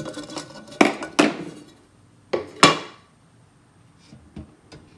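Metal can lid being pried off with a paint-can key: four sharp metallic clicks and clanks with a short ring, two about a second in and two more around two and a half seconds, followed by a few faint small clicks.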